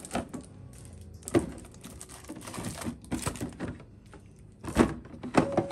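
Clear plastic stacking storage drawers clicking and knocking as a wrapped block of tempeh is set inside and the drawer is slid shut. About five separate sharp knocks, spread out with short gaps between them.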